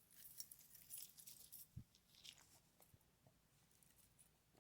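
Faint jingling and small clicks of a metal necklace chain being handled, fading to near silence after about two and a half seconds.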